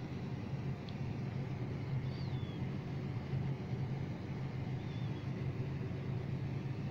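A steady low hum and hiss with no change in level, with a few faint, brief high-pitched chirps over it.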